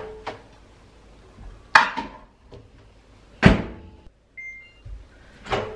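Microwave oven being loaded and set to cook: several knocks and a heavy door clunk, then a few short keypad beeps about four seconds in.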